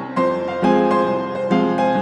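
Background piano music, a new note or chord struck about every half second.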